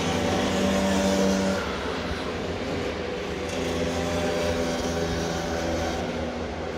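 Motorcycle engine running while riding, over a steady rush of wind and road noise. The engine note eases off about a second and a half in and picks up again a couple of seconds later.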